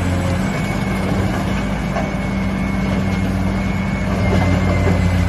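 Heavy excavator's diesel engine running steadily with a deep low hum; its note shifts slightly about half a second in.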